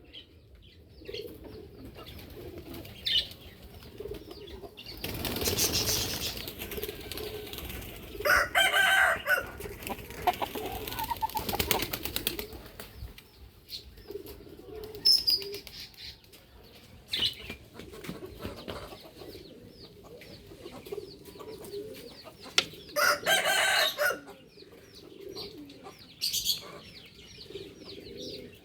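Chickens: a rooster flaps its wings in a noisy flurry, then crows twice, each crow short and about a second long, the two roughly fifteen seconds apart. Low clucking and murmuring run between them.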